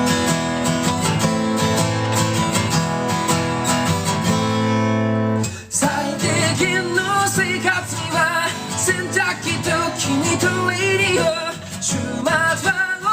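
Acoustic guitar strummed in a steady chord pattern. About six seconds in the strumming breaks off briefly, then a male voice starts singing over the guitar.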